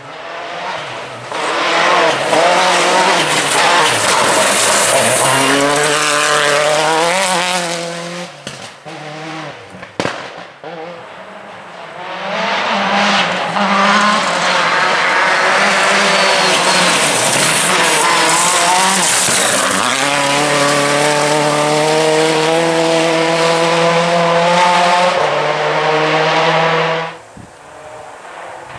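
Hyundai i20 G4 rally car driven hard on gravel: its engine note climbs and drops as it shifts gear. About eight seconds in it eases off, with a few sharp cracks, then comes back loud for a second long run that cuts off sharply near the end.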